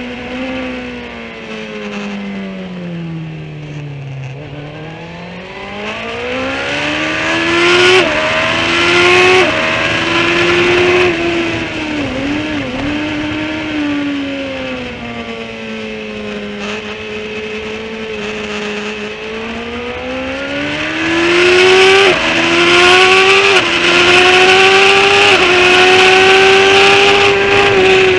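Sports motorcycle engine heard onboard on a race track. The revs fall as the bike slows, then climb hard through the gears, with a short dip at each upshift. They fall again, hold low for several seconds, then climb through three more upshifts near the end, with wind rush growing at speed.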